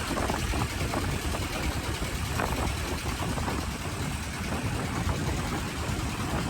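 An engine running steadily at idle, a low even rumble.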